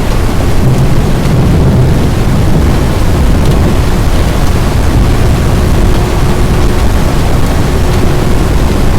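Loud, steady rush of storm wind with rain, heavy wind buffeting the microphone.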